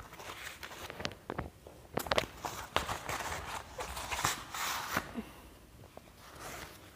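A brown paper courier packet being opened and handled: rustling and crinkling paper with scattered sharp crackles, busiest in the middle, as a sheet of paper is pulled out of it.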